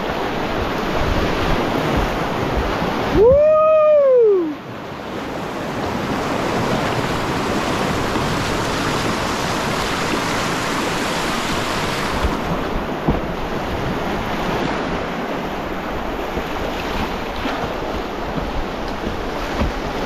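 Rushing whitewater of a river rapid, a steady hiss of moving water. About three seconds in, a person lets out one long whoop that rises and then falls in pitch.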